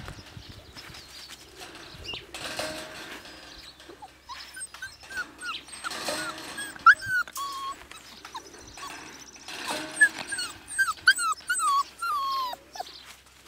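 Siberian husky puppies about four weeks old whining in many short high squeaks. The squeaks start about four seconds in and come thickest in the middle and again near the end.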